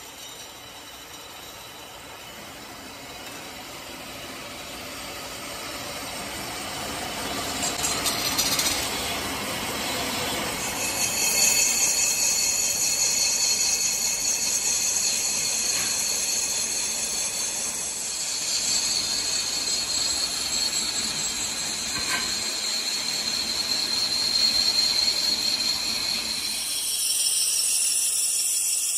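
Metal lathe turning a diesel engine cylinder liner, the cutting tool shearing off metal chips with a steady hiss and a high-pitched ring. The cutting sound grows louder over the first third.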